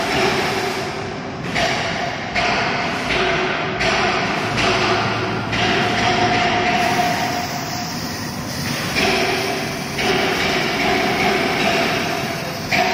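Fabric laser cutting machine running: the laser head's gantry drive moves in short runs that start and stop abruptly every second or two, some with a humming tone, over a steady rushing air noise.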